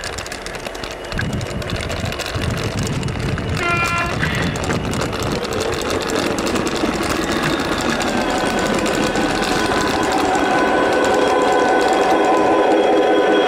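Gauge 1 garden-railway model train running along the track, its wheels rattling over the rails and growing louder as it comes nearer. A brief horn blast sounds about four seconds in.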